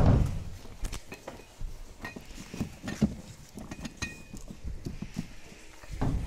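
A cardboard box of glass tumblers and other packages being set down and shifted on a car's back seat: a heavy bump at the start, then irregular knocks and rustling, with a few short high clinks, and another bump near the end.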